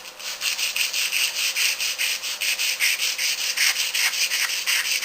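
Sandpaper held in the hand, without a sanding block, scrubbing over go-kart frame tubing in quick back-and-forth strokes, about four a second.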